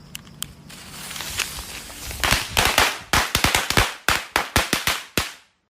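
A string of firecrackers going off: a hiss builds for about a second and a half, then a rapid, irregular run of sharp bangs, around fifteen in three seconds, stops abruptly near the end.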